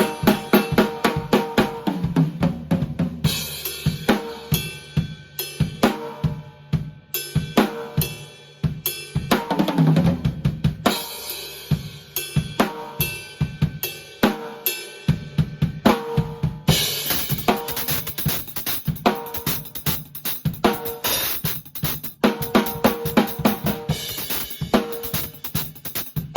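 Drum kit played in a fast, steady groove: kick drum, snare and cymbal hits, with a hi-hat that sounds muffled.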